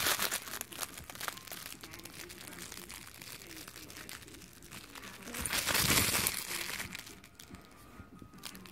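A chihuahua chewing and tugging at a plush squirrel toy: a dense rustling with small clicks and scratches. It swells into a louder burst of rustling about five to six seconds in.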